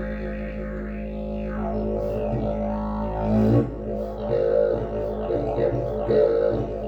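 Agave travel didgeridoo with its extra-long fixed section fitted, played as a continuous low drone keyed in G sharp. The overtones sweep and shift as the player reshapes the mouth, and from about halfway through the drone pulses in a rhythm.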